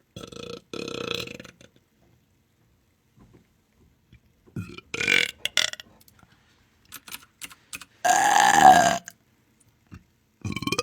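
A series of deliberate belches, about four in all, with quiet gaps between them; the loudest and longest, about eight seconds in, lasts about a second.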